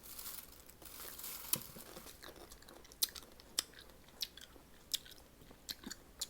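Close-up mouth sounds of someone biting and chewing sour mango dipped in vinegar: irregular wet clicks and small crunches.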